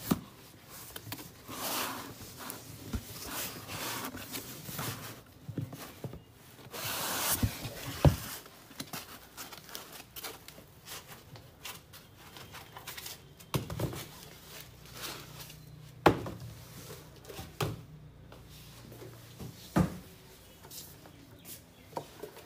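Unpacking handling noise: foam packing inserts and a cardboard box rubbing and scraping as a benchtop digital multimeter is lifted out, with scattered knocks and thumps, the sharpest about 8 seconds in.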